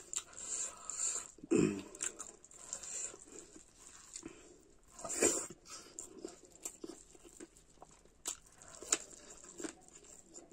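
Close-up eating sounds: wet chewing and lip smacks, with squelches of fingers working rice and curry on a steel plate, and a few louder smacks along the way.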